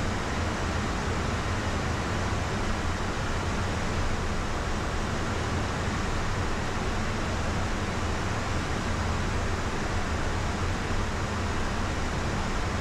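Steady rush of airflow and turbofan noise in the cockpit of a Beechcraft Premier I business jet descending at high altitude, an even hiss with a low hum beneath it.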